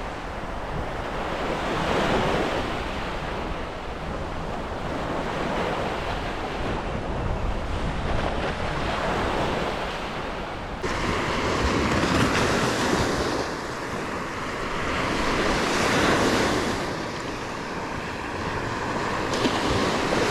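Surf breaking and washing up the beach, swelling and easing every few seconds, with wind rumbling on the microphone.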